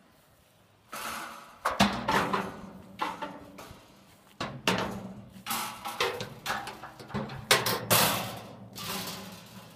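Steel stockyard gate and panels banging and rattling, about a dozen sharp clangs, each ringing on briefly, starting about a second in.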